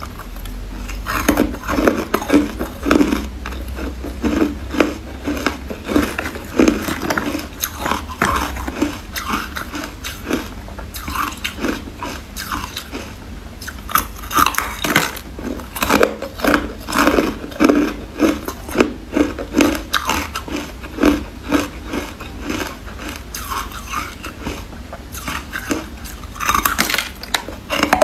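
Crunching of carbonated ice: a person biting into frosty, porous ice cubes and chewing them, crisp crunches coming several times a second.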